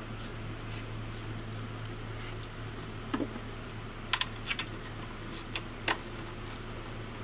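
Light metallic clicks of a hand tool working on a car battery terminal as the battery is being taken out, about three a second, with several sharper clicks between about three and six seconds in, over a steady low hum.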